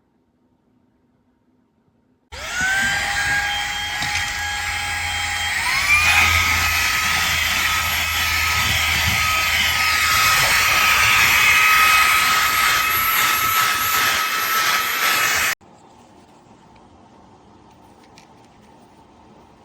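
Fanttik V8 Apex cordless handheld vacuum switched on, its motor whine spinning up quickly, then stepping up to a higher pitch about three seconds later as it goes to its higher power mode. It runs steadily for about ten seconds more and cuts off suddenly.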